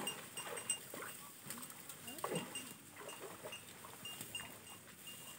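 Water buffalo herd at a muddy pond: a few short animal calls, with quick high clinks repeating about twice a second.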